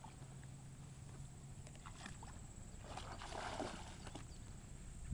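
A border collie wading in shallow pond water, its legs splashing and sloshing faintly, loudest a little past the middle.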